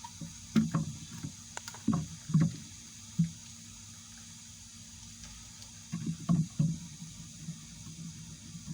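Short low knocks and clunks of hard objects being handled on a bench, some with a sharp click, in two bursts: one over the first couple of seconds and another about six seconds in, over a steady low hum.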